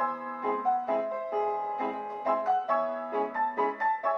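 1920s pianola (player piano) playing from its perforated roll, its vacuum mechanism striking the keys in a quick, regular run of piano notes and chords.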